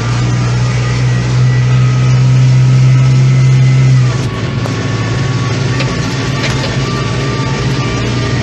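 Heavy diesel farm machinery working at a maize silage harvest: a loud, steady engine drone that drops in level a little about four seconds in.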